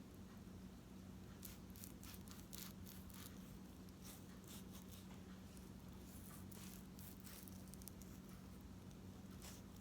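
Near silence: a steady low hum with faint scattered ticks and rustles.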